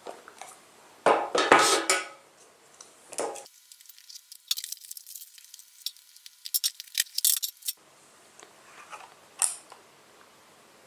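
A smartphone's cardboard retail box being unwrapped and opened by hand: a loud rustle about a second in, then a run of small crackles and clicks, and a brief rustle near the end as the lid comes off.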